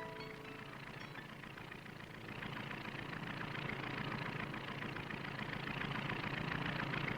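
Propeller airplane engine droning steadily, with a fast even pulsing, growing louder about two seconds in.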